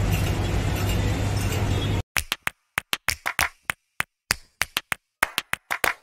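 Busy street-stall background noise with a steady low hum for about two seconds. It then cuts abruptly to music of sharp claps and taps in a quick, uneven rhythm with dead silence between the hits.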